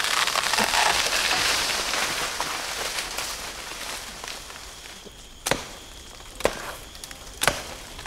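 A felled palm tree crashing down, its fronds and branches rushing and rustling and then fading away over the first few seconds. Then sharp chopping blows into the palm trunk, about one a second.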